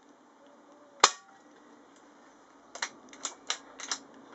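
Air rifle firing a single pellet at about 794 fps (11.8 ft-lbs): one sharp crack about a second in, with a short ring after it. About two seconds later come several lighter clicks.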